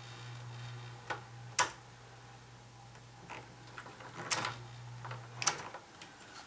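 A few sharp clicks and knocks as the humidifier's plastic fan and motor parts are handled, over a steady low hum that stops about five and a half seconds in.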